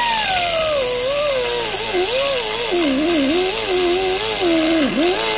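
Flex-shaft rotary tool spinning up and grinding metal: a whine that jumps up at the start, then sinks and wavers in pitch as the bit bogs down under load, over a steady grinding hiss.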